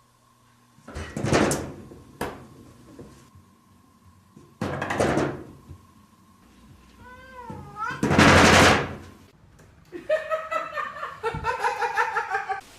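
Domestic cat meowing once, a short call that rises and falls, between three loud noisy bursts, the loudest just after the meow. Near the end comes a longer wavering voice-like sound.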